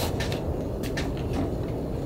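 A few light clicks and taps as a small tabletop cooking appliance is handled and set on a wooden table, over a steady low rumble.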